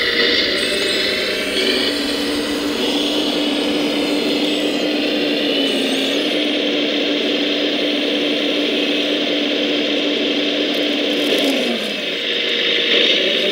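Electric motor and hydraulic pump of a 1:14-scale RC hydraulic model machine running steadily with a whine. Its tone steps in pitch a couple of times and dips briefly near the end.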